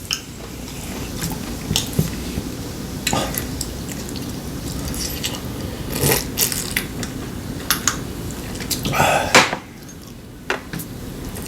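Eating utensils clinking and scraping against dishes and bowls at a meal, in scattered short knocks, with a longer scrape about nine seconds in, and some chewing.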